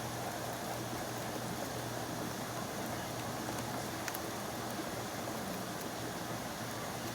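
Steady rain: an even hiss with a few faint drip ticks and no thunder.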